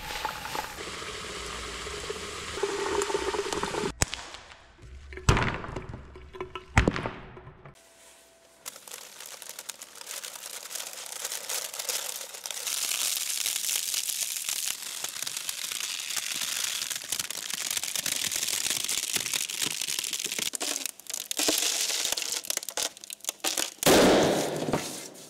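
Liquid air hissing as it pours from a nozzle, followed by a few sharp clicks. It then boils violently in water with a long, steady hissing and crackling rush, and there is a louder burst near the end.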